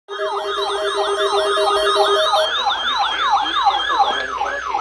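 Electronic siren alert: a loud tone sweeping rapidly downward over and over, about three falls a second. Two steady lower tones sound underneath for the first couple of seconds, then stop.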